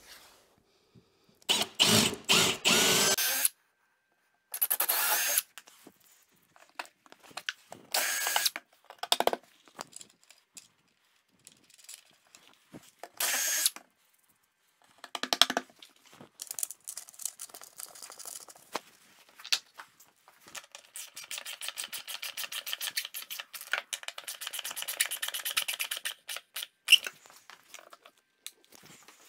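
Cordless drill boring holes through pressure-treated timber legs for coach bolts, in several separate bursts of a second or two. Later comes a long run of fast, even clicking.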